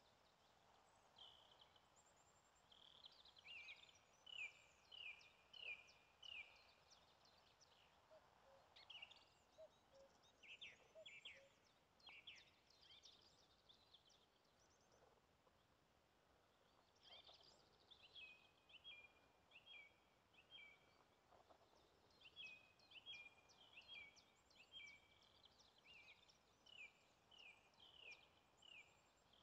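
Faint songbird song: runs of four to six short, high, falling notes repeated in quick series, with scattered quick chirps between the runs.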